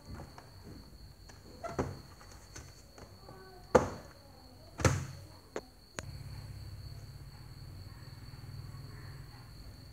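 Knocks and clicks of a Dell laptop's plastic case being handled and its lid opened, the two loudest about four and five seconds in. A steady high thin tone runs underneath.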